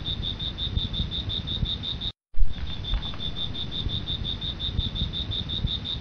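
Insect chirping, an even high pulse about six times a second, over a low rumble. It cuts off about two seconds in and starts again a moment later with a loud thump, as a looped nature-sound recording does.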